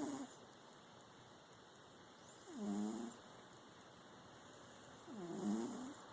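Domestic cat snoring in its sleep: two pitched snores, each under a second long, about two and a half seconds apart, with the tail of a third right at the start.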